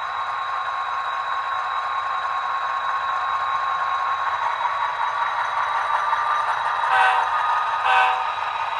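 HO scale model diesel locomotives running past, a steady whirring hum with a faint tone that rises slightly, growing louder as they come close. Near the end, two short pitched toots about a second apart.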